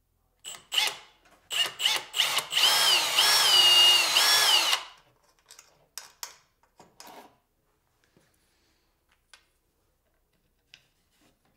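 Cordless drill running in a few short trigger pulses, then for about two seconds with its whine dipping and rising in pitch as it drills into the end of a plywood board, before stopping. Faint clicks and handling knocks follow.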